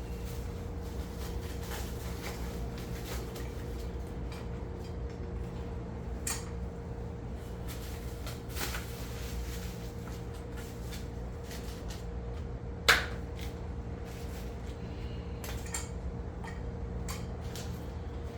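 Small clicks and knocks of objects being handled, with one sharp, louder knock about 13 seconds in, over a steady low hum.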